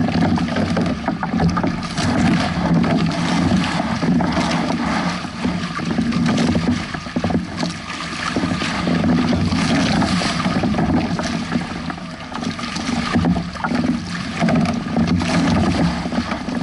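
Water rushing and splashing along the hulls of a Hobie 16 catamaran under sail through choppy waves, with wind buffeting the microphone. The wash swells and eases irregularly.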